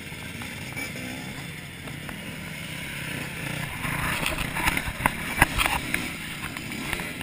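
Several dirt bike engines running and revving as the bikes circle close by. The sound grows louder about four seconds in, with a few sharp clicks in the loudest stretch.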